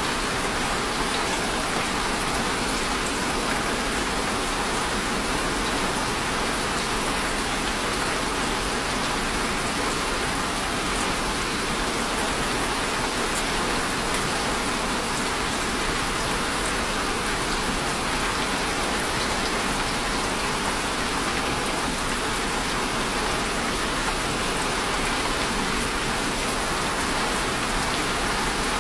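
Steady rain falling and pattering on a surface, an even, unbroken hiss with scattered drop ticks.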